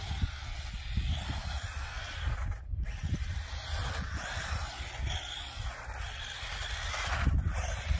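Losi Mini T 2.0 1/18-scale RC truck with its 280 brushed electric motor driven at full power across concrete: a steady hissing whir of motor and tyres on the rough surface. The sound breaks off briefly about three seconds in.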